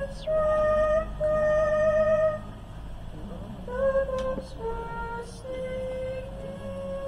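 A young woman singing solo into a microphone, slow, with long held notes that step up and down in pitch.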